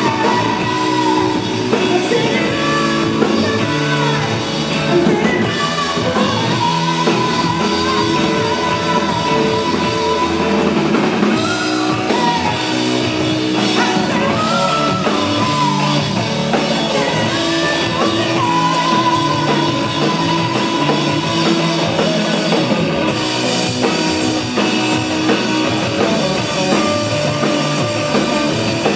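Rock band playing live, with a singer over guitar and drum kit.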